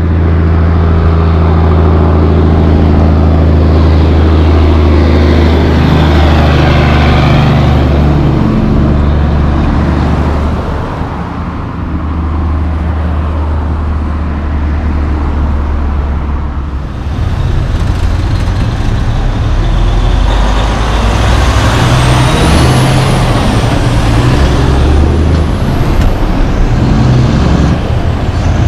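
Road traffic passing, cars and trucks, with a deep steady engine drone through most of it. A high squeal rises and falls twice about three quarters of the way through.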